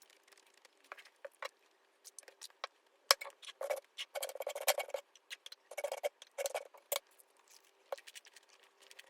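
Light clicks and taps of small objects being handled, scattered at first, then a busier run of clattering from about three to seven seconds in.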